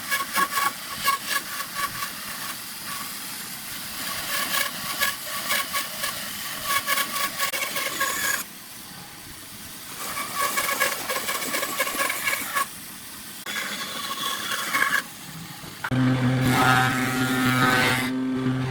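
A workshop power tool running in uneven surges, stopping abruptly several times. Background music comes in about 16 seconds in.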